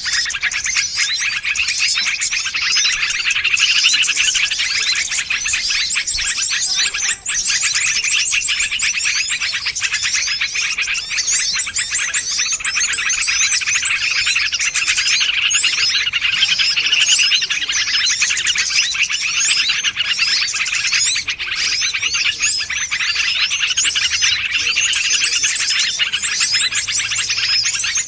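Dense, unbroken chorus of many small birds chirping and twittering at once, rapid and high-pitched: a bird-lure (pikat) call recording made to draw wild small birds in.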